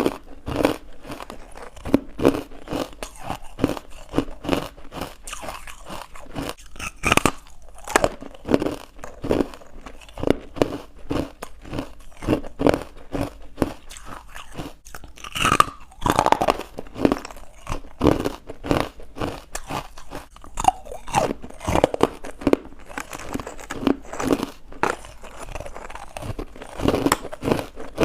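Close-up chewing and crunching of powdery, chalky carbonated ice, with frequent irregular crunches, some louder bites among them.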